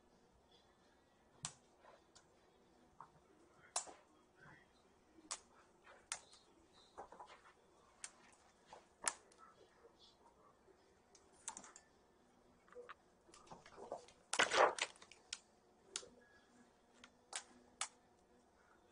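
Kittens at play: scattered light clicks and taps at irregular intervals, with a louder scuffle about fourteen seconds in.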